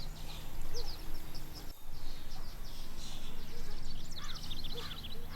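Small birds chirping outdoors: many short, high, falling chirps, with a quick trill of rapid notes about four seconds in, over a steady low hum.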